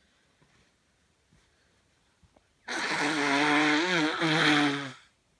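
A person with hay fever congestion blowing their nose hard once. It is a long, wet blast with a buzzing, wavering pitch, lasting a little over two seconds and starting about halfway in.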